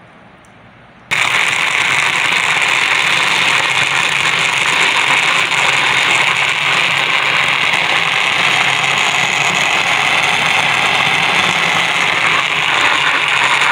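Electric kitchen blender switched on about a second in, running steadily as it blends raw mango pieces, mint leaves and water into a frothy drink.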